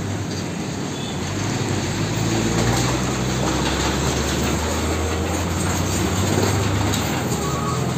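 Isuzu FTR car-carrier truck driving past: its diesel engine runs with a steady low hum under a constant rush of road and tyre noise.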